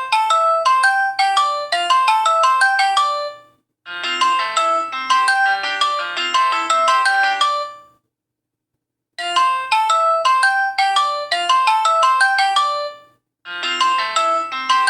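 A built-in Alcatel 3025 mobile phone ringtone: a bright electronic melody over a lower bass line. It plays in phrases of about four seconds, pauses for about a second just past the middle, then repeats.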